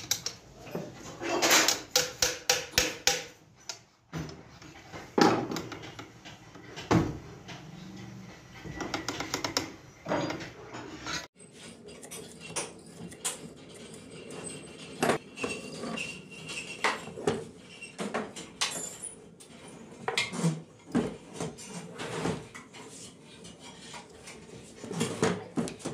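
Metal parts of a hand-assembled sewing machine head clinking and clicking against each other and against hand tools, in short irregular taps.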